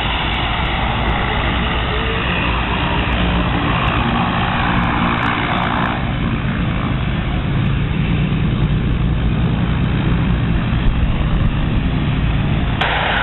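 Cessna 208 Caravan's Pratt & Whitney PT6A turboprop running at taxi power, a steady propeller and turbine drone as the aircraft taxis. The higher hiss drops off about six seconds in as the plane turns away.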